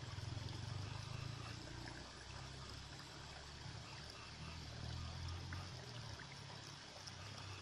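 Faint, steady trickle of water, with a low steady hum beneath it.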